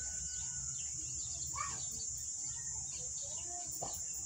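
Outdoor ambience: a steady high-pitched insect drone, like crickets, with a few faint bird chirps scattered through it.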